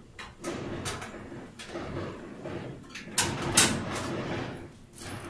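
Metal rotisserie spit and tray clinking and scraping against the wire racks of a countertop oven as they are lifted out. A handful of separate knocks and scrapes, the loudest a little past the middle.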